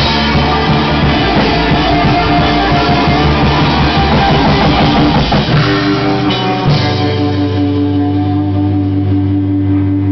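Punk rock band playing live, with distorted electric guitar, bass and drum kit, loud. About two-thirds of the way in the drums stop and a held chord rings on steadily as the song ends.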